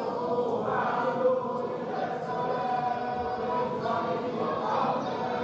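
A group of men chanting together in unison, with held pitches moving slowly from note to note: communal Quran recitation in a mosque.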